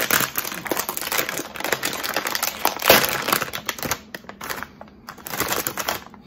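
Foil potato-chip bag crinkling and crackling as it is handled and pulled open, loudest about three seconds in, then quieter with a short burst of rustling near the end.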